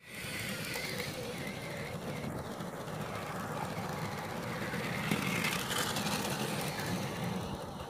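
A motorised Lego train runs past on plastic track, its motor and wheels making a steady rolling whir that grows loudest about five seconds in as the wagons pass closest.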